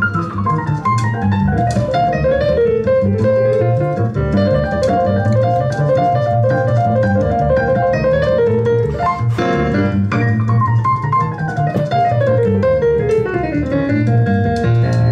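Instrumental music led by a keyboard, with two long runs of notes stepping down in pitch, one at the start and one near the end.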